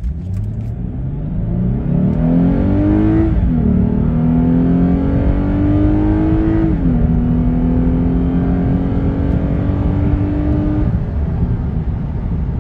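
Lexus IS350's 3.5-litre V6 at full throttle from a standstill, heard from inside the cabin. The engine note climbs, drops at an upshift about three seconds in, and climbs again. It drops at a second upshift about seven seconds in, then rises slowly until it fades near the end.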